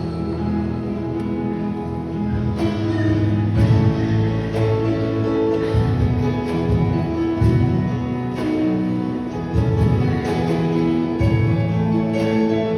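Instrumental music: held notes over a recurring bass pulse, with no singing.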